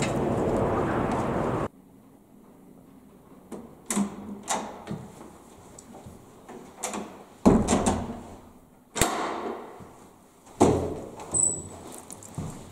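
Steady outdoor noise that cuts off abruptly just under two seconds in, then a string of knocks and clicks indoors from doors being opened and shut and footsteps, the loudest a thud about halfway through followed by a sharp click.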